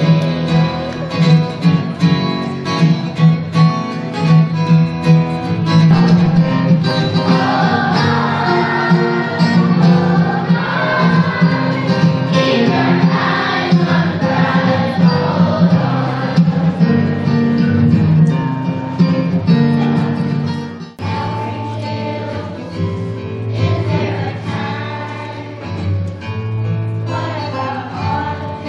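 Children's choir singing along with instrumental accompaniment. About two-thirds of the way through the music breaks off abruptly and a different song starts.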